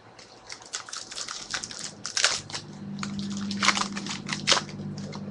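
Foil card-pack wrappers crinkling and crackling as trading card packs are torn open and handled, in irregular sharp rustles. A low steady hum runs underneath from about two seconds in.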